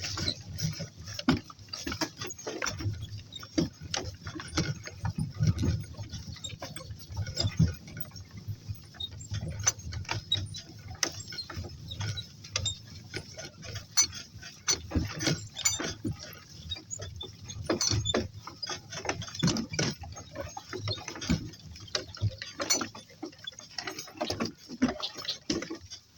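Irregular clicks, knocks and rattles over low thuds throughout, the jostling of a walk with pack donkeys: hooves, tack and the camera rig knocking as they move.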